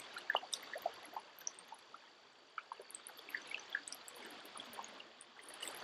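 River water trickling and gurgling faintly, with scattered small plops and drips.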